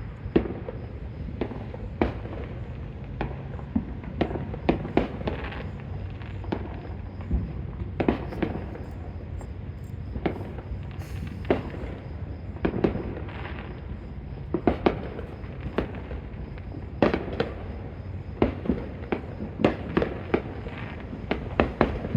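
Fireworks and firecrackers going off, sharp pops and bangs at irregular intervals, some in quick clusters of two or three, over a steady low background rumble.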